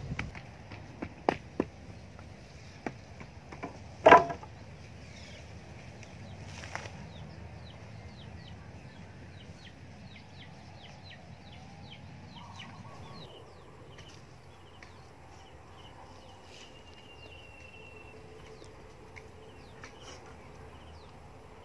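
A few sharp wooden knocks as a wooden stake is rammed into the soil by hand, the loudest about four seconds in. After that comes a long run of rapid, short high bird chirps.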